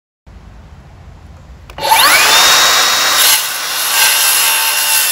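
Makita brushless circular saw starting about two seconds in, its whine rising as the blade spins up, then cutting steadily through a wooden 4x4 post.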